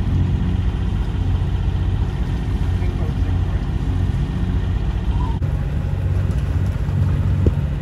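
Sailing yacht's inboard engine running steadily under motor, a low drone under a steady rushing noise.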